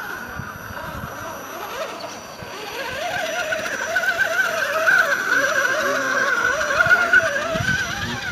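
Axial SCX10 RC rock crawler's electric motor and geared drivetrain whining under throttle as it climbs rock, the pitch wavering with the throttle. The whine grows louder about three seconds in.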